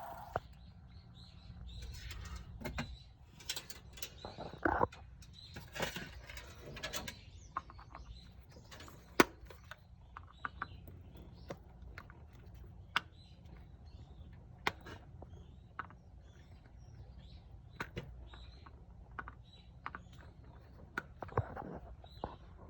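Scattered light clicks, taps and knocks, like small metal parts and hand tools being handled, over a faint low hum.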